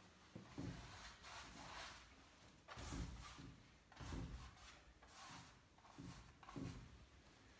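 A paintbrush sweeping and rubbing across a large painting surface: several faint, separate strokes, roughly one a second.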